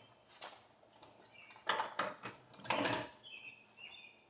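Two short scraping clanks of a wrench working the lug nuts on a car's front wheel, with faint chirps near the end.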